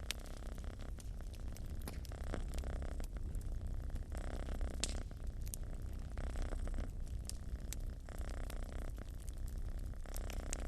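Domestic cat purring steadily, a low rumble that swells and eases in slow cycles, with a wood fire crackling and popping in sharp, irregular snaps over it.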